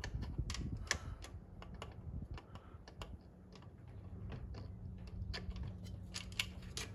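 Irregular light metallic clicks and taps of hand tools and bolts while fuel bowl bolts are started by hand, with a faint steady hum underneath from about halfway.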